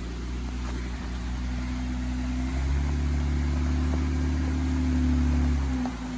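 Jeep Wrangler JK's V6 engine pulling in low range while crawling up a rutted trail climb. It gets louder about two and a half seconds in, holds steady under load, then eases off suddenly just before the end.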